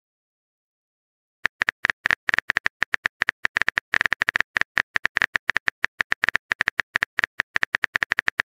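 Keyboard typing sound effect of a texting-story app: a long run of rapid, sharp clicks, several a second, starting about a second and a half in, as a chat message is typed out.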